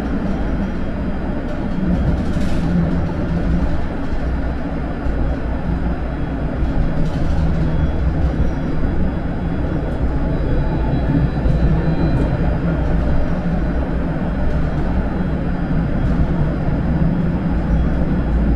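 Vario LF2+ low-floor tram running along the track, a steady low rumble of wheels and traction drive with a few faint ticks.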